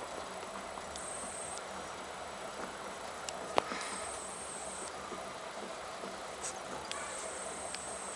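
High, thin insect trilling that starts and stops in spells of about a second, over a steady hiss, with one sharp click about three and a half seconds in.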